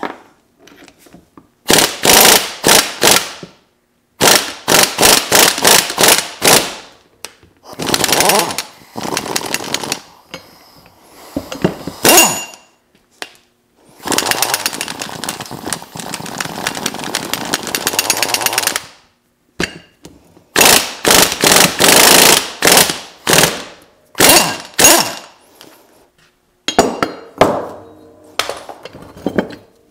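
Impact wrench hammering in repeated bursts, driving the screw of a ball joint press to push the U-joint cups out of a worn double Cardan joint on a truck's front drive shaft. The bursts last one to three seconds each, with one longer run of about five seconds mid-way.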